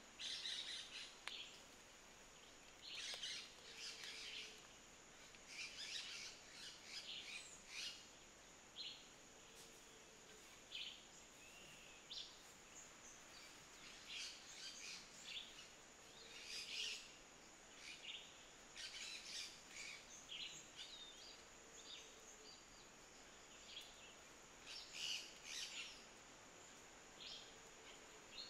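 Forest birds chirping and trilling in short, scattered bursts over a steady high-pitched whine, with a faint low note repeating about every six seconds.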